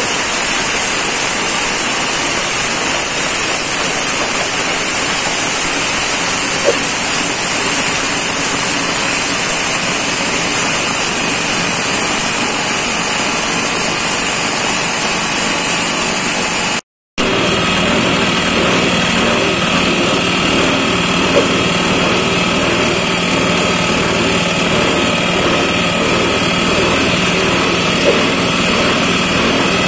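A steady rushing noise, then after a brief break about halfway through, a small petrol engine running steadily, driving a mini shell-grinding mill.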